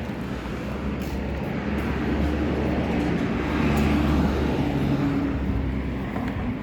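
A motor vehicle engine running with a low, steady hum that grows louder around the middle and eases off near the end.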